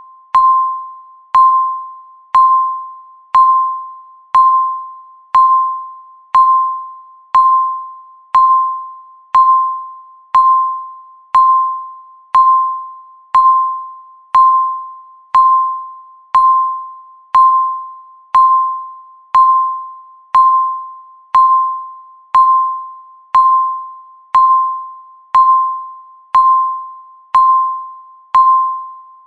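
Countdown timer beeping once every second: a single clear electronic tone, sharp at the start and fading within the second, repeated evenly about thirty times.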